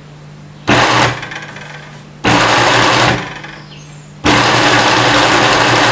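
Industrial sewing machine, driven by a servo motor, stitching fabric in three loud runs. The first is short, about a second in. The second starts about two seconds in and lasts under a second. The third starts at about four seconds and keeps going.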